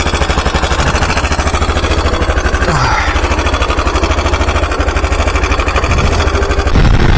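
Stels 400GS motorcycle engine running under way, an even pulsing throb with wind and road noise over it, getting louder near the end.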